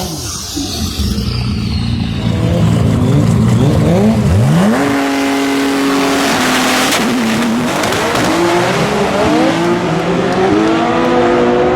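Nissan R35 GT-R's twin-turbo V6 drag car revving hard, then climbing sharply in pitch about four seconds in as it launches. It then pulls up through the gears in a series of rising sweeps, each broken by a short drop at the shift.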